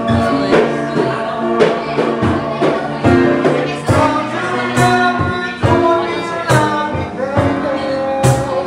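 A song sung over a backing track with a steady drum beat, performed by the restaurant's singing waiters.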